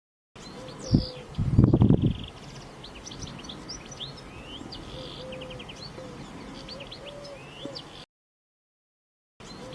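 Birds chirping and singing: many short high chirps with a lower wavering call repeating among them. About a second in there is a sharp thump, followed by a loud low rumble lasting about half a second, and the sound stops abruptly about a second before the end.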